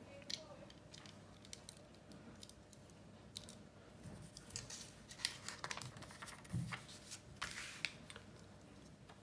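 Plastic LEGO bricks clicking and rattling softly as they are handled and pressed together. A brief paper rustle comes about seven and a half seconds in, as an instruction booklet page is turned.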